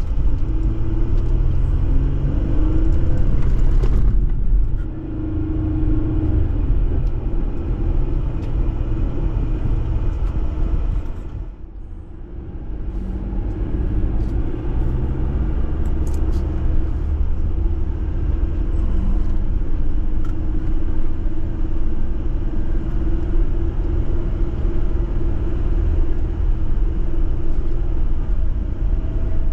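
Jeep engine running as it drives off-road, a steady low rumble with the engine note rising and falling; it dips briefly about twelve seconds in.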